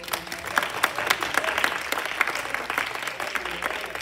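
Audience applauding: a burst of clapping that starts suddenly and keeps going at a steady pace.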